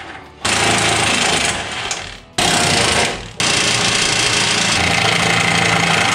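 DeWalt cordless impact wrench hammering on the crossmember bolts, loud, in three runs: about two seconds, then a short one, then a long unbroken run through to the end.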